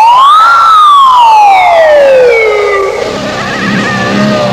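A siren wailing: a single tone sweeps up steeply, then falls slowly over about two and a half seconds. About three seconds in it gives way to quieter, wavering tones over a low steady note.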